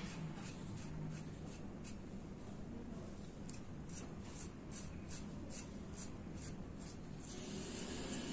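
Gillette 7 O'Clock safety razor with a Topaz Platinum blade on its second use scraping through stubble under the nose in short, quick strokes, about three a second, stopping near the end. The shaver found this blade pulling and tugging.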